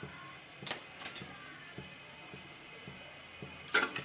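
Light clinks of a metal spoon against a metal cooking pan: a few sharp taps about a second in and another cluster near the end.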